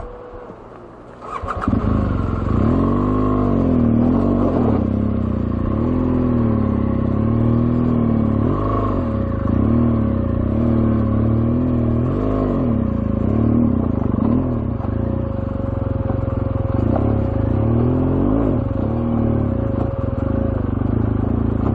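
BMW R1200GS flat-twin boxer engine pulling away about a second and a half in and climbing a rough, rocky trail. The revs rise and fall over and over as the throttle is worked over the rocks.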